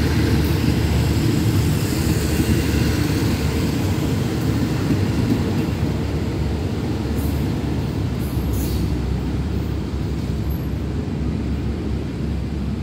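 Passenger coaches of express train 83 rolling along the track with a steady low rumble that eases slightly as the train pulls away.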